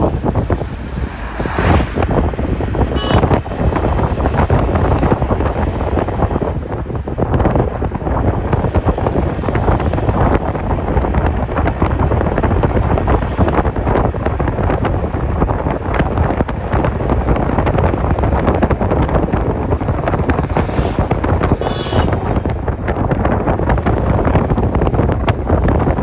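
Wind buffeting the microphone: a loud, steady low rumble with a hiss above it, broken by a few short clicks.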